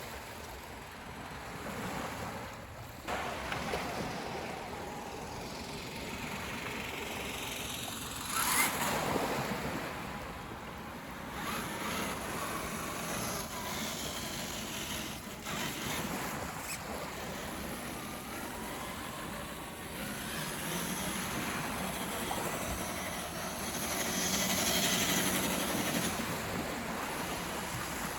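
Waves washing on a beach, mixed with the electric motor whine of a radio-controlled scale crawler that rises and falls in pitch as it drives through the shallows; a loud wash about eight seconds in.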